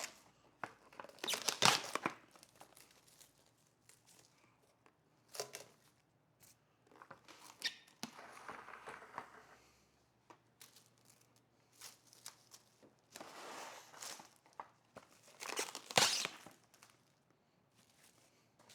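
Intermittent rustling and crinkling with scattered clicks and knocks, from things being handled; the loudest bursts come a couple of seconds in and again near the end.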